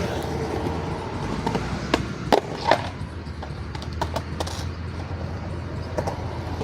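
Skateboard rolling with a steady low wheel rumble, broken by several sharp clacks of the board, most of them a couple of seconds in.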